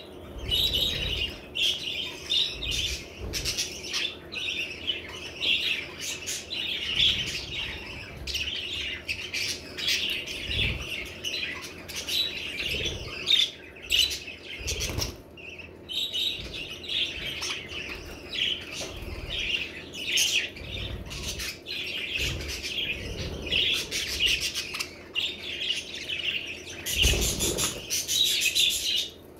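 Several budgerigars chattering and chirping without pause, a busy high warble with short clicks scattered through it.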